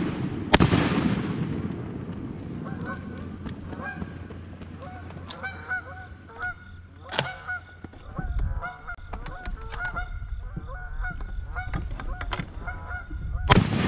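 A shotgun blast about half a second in, its report trailing off. Then Canada geese honk repeatedly for about ten seconds, in many short calls, and a second shotgun blast comes near the end.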